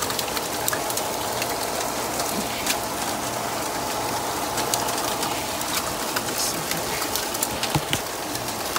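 Pool pump running steadily with a low motor hum, and rain falling on the equipment, with many small drop ticks. A couple of light knocks near the end as the PVC valve handles are worked.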